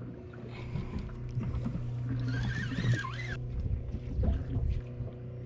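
Low, steady hum of a boat's engine idling, with a few faint scattered sounds over it.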